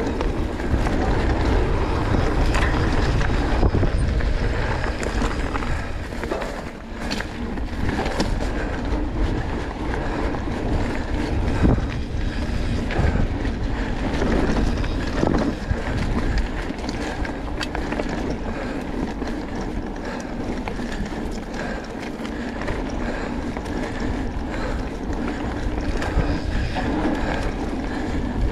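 Enduro mountain bike riding down a rough trail: wind rushing over the microphone as a steady low rumble, with the tyres and bike clattering over the ground in many sharp knocks.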